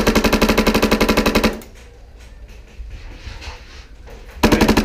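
Airsoft rifle firing rapid strings of shots, about eight a second: one string of about a second and a half, then after a pause a second string starting near the end. The rate is fast enough that the other team takes it for full auto, while the shooter insists it is semi-auto.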